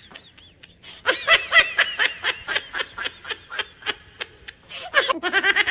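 High-pitched snickering laughter in rapid repeated pulses, starting about a second in, breaking off near four seconds and returning near the end.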